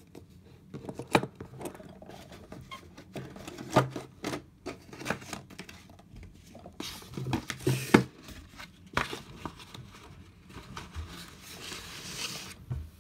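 Objects handled on a wooden table: a wooden chess box and a cardboard box are moved and set down, giving scattered clicks and knocks, with rustling and scraping about seven seconds in and again near the end.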